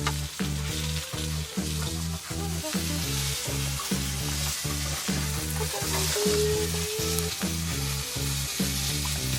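Background music with a quick, even run of low notes, over a steady high hiss.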